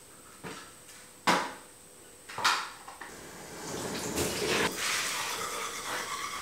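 Three sharp knocks on a stainless-steel sink, then a tap running water into the basin from about four seconds in.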